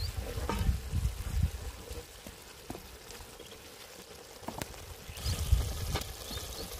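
Wooden spoon stirring and scraping wet beef mince in a cast iron pot on a fire, with the watery sauce sizzling and bubbling as it cooks off. A few light knocks of the spoon on the pot, and low thuds near the start and about five seconds in.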